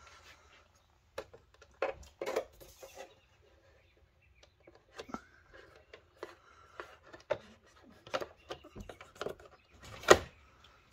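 Handling noise: scattered light clicks, taps and rustles, with one sharper knock about ten seconds in.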